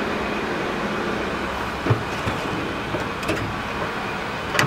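Steady machinery din of a factory floor, with a few scattered clicks and knocks in the second half.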